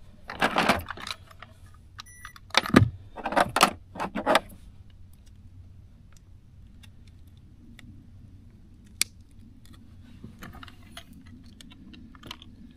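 Metal fishing gear jangling and clattering as hands rummage for a hanging fish scale and lip-grip. The clatter is loudest in the first few seconds, with a short electronic beep about two seconds in. Then come quieter handling clicks and rustling, with one sharp click near the middle.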